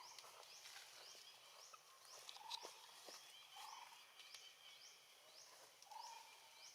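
Faint animal calls: a high, upward-sweeping chirp repeats about twice a second, with a few short, lower calls.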